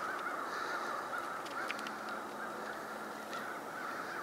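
A distant flock of birds calling without a break, a steady chorus of overlapping, wavering calls, with a few faint ticks about one and a half seconds in.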